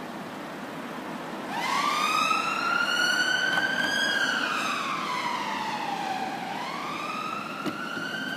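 Emergency vehicle siren starting up about a second and a half in and wailing: a rise in pitch, a long slow fall, then a rise again, over steady road noise.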